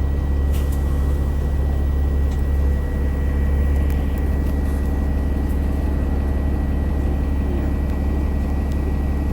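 Alexander Dennis Enviro500 MMC double-decker bus under way, heard from inside: a steady low drone from its Cummins ISL8.9 six-cylinder diesel and driveline, with a thin steady high whine over it, the odd axle noise that the recording is about.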